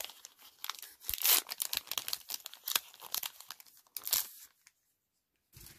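A Magic: The Gathering booster-pack wrapper being torn open and crinkled by hand, crackling in irregular bursts for about four seconds, with one short rustle near the end.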